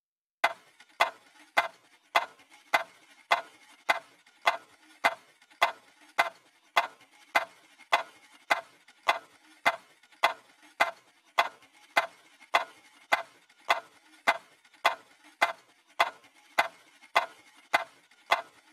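Clock ticking steadily, a little under two ticks a second, starting about half a second in.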